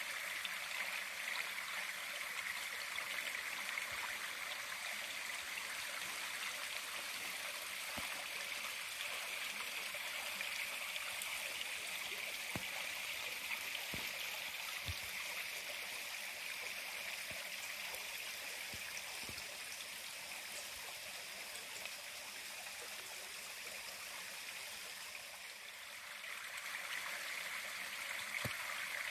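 Steady rushing of a nearby stream, which dips slightly near the end and swells back. A few faint footfalls knock underneath.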